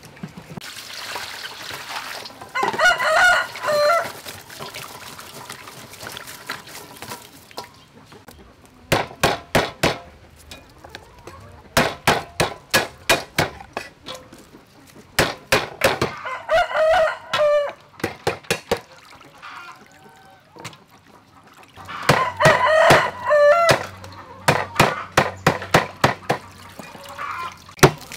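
Rapid chopping: a cleaver cuts lemongrass stalks on a wooden chopping block in several quick runs of strokes. A rooster crows three times between them.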